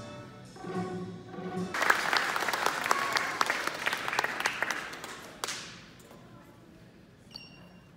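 A children's string ensemble with violins plays its last notes. Then an audience claps for about four seconds, and the clapping dies away.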